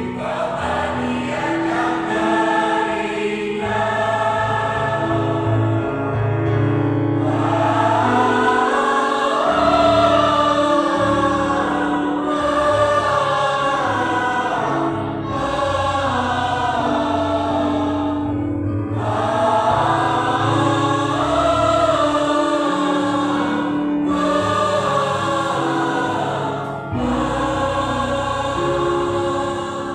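Choir of school teachers and staff singing a Christian song in phrases, over steady held low notes.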